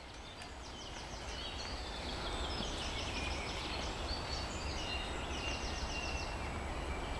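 Songbirds singing in the forest: several rapid trills of quick, high repeated notes, over a steady low rumble.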